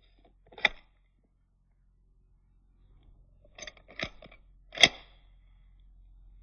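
Sharp clicks from handling a handgun: one click, then a quick cluster of clicks and a louder snap near the five-second mark.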